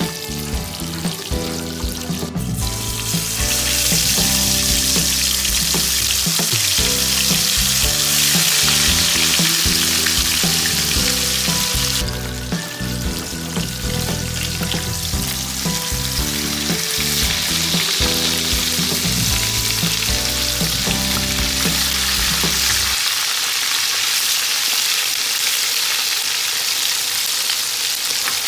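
Whole spice-coated fish deep-frying in hot oil in a pan, a loud steady sizzle that dips briefly about twelve seconds in. Background music with low notes plays under it and stops about two-thirds of the way through.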